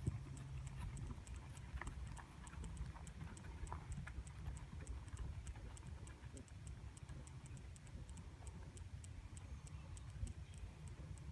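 Insects chirping: a faint, even, high-pitched ticking, about three to four a second, over a steady low rumble of wind on the microphone.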